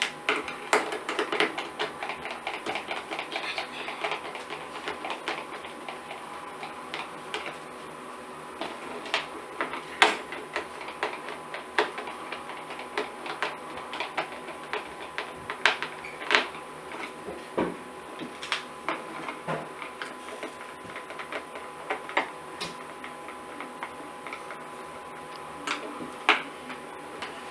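Small screwdriver driving screws into the plastic casing of an Orpat OCH-1400 convector heater. A dense run of rapid clicking over the first few seconds, then scattered sharp clicks and taps of the tool and screws against the plastic.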